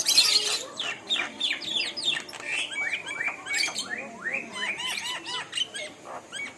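Several small birds chirping busily, a quick stream of short, mostly falling notes overlapping one another, after a harsh burst right at the start.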